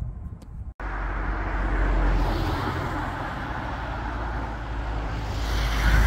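Steady outdoor background noise, a low rumble with hiss above it, with no distinct event. It cuts out for an instant under a second in, then carries on and grows a little louder near the end.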